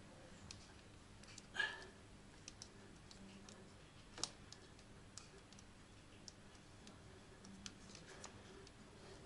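Near silence: quiet room tone with a few faint scattered clicks and light handling noises, the clearest a soft rustle about a second and a half in and a sharper click about four seconds in.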